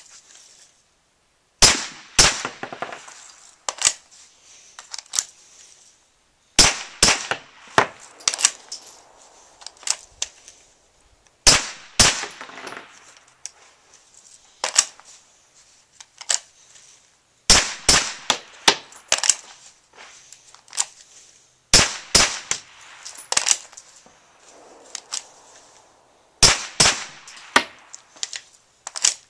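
A suppressed Glock 17 9mm pistol is fired through an RDT suppressor in about six quick strings of several shots each, one string every four to five seconds. Each shot is a sharp crack with a short echo after it.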